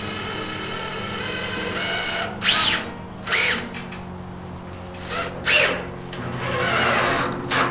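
Power drill driving rubber-washered roofing screws into a corrugated roof panel in several short bursts, the motor's whine rising and falling in pitch with each run. Steady background music underneath.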